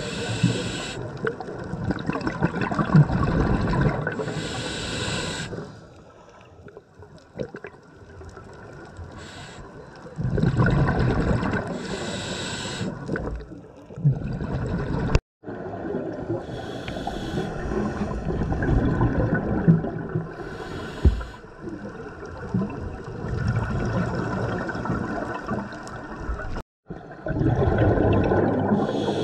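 Scuba regulator breathing heard underwater: a short hiss on each inhale, then a burst of exhaled bubbles, repeating every few seconds. The sound drops out briefly twice.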